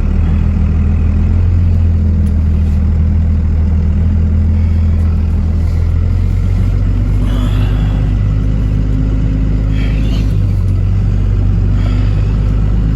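Pickup truck engine running steadily, a low drone that shifts slightly in pitch about six and ten seconds in.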